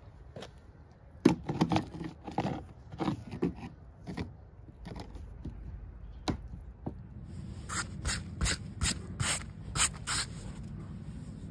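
A hand scraping and rubbing over the rough, weathered surfaces of an old boat: a string of short, irregular scrapes, busiest in the second half.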